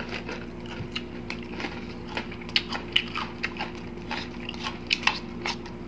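Close-up chewing and crunching of crispy fried pork chicharon, with many short, sharp crunches scattered irregularly through the chewing.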